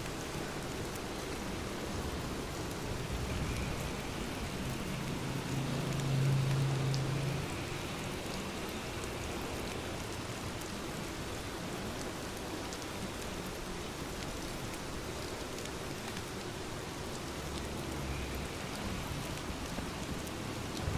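Steady rain falling, with a fine patter of drops. A brief low rumble swells about six seconds in.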